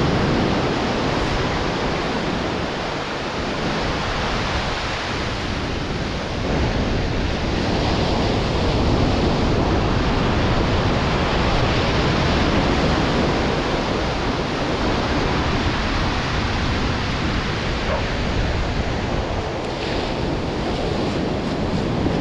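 Steady noise of surf breaking and washing up the beach, with wind rumbling on the microphone.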